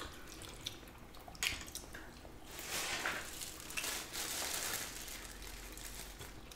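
Quiet eating sounds: forks stirring noodles in soup broth with wet, dripping squishes and a sharp clink about a second and a half in. From about two and a half seconds in, a plastic produce bag rustles as bean sprouts are shaken out of it into the pho.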